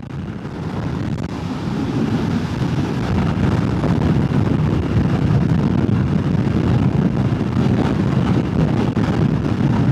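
Wind rushing over the microphone on a moving motorcycle, mixed with engine and road noise. It swells over the first few seconds as speed builds, then holds steady.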